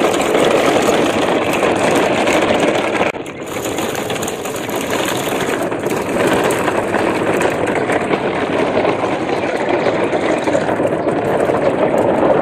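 Steady rumbling, engine-like noise from a moving convoy of plastic toy dump trucks, dipping briefly about three seconds in.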